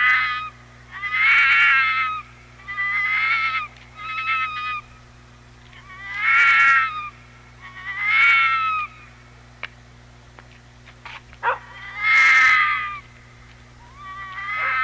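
An animal calling over and over: about eight pitched, wavering calls of around a second each, with short pauses between them, and a few sharp clicks in a longer pause about two-thirds of the way through.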